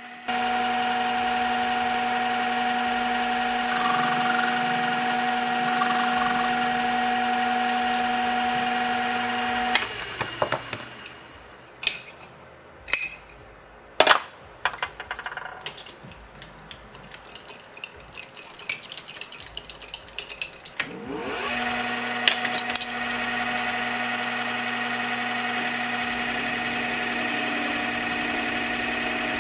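Metal lathe running with a steady whine, then spinning down about ten seconds in. A stretch of sharp metal clinks and knocks follows while the chuck stands still. A little after twenty seconds the lathe starts up again and runs steadily.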